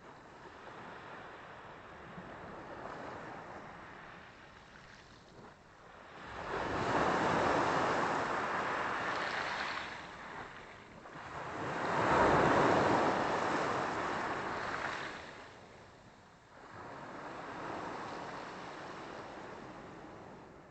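Black Sea waves breaking and washing up the shore in four slow surges, the two in the middle the loudest.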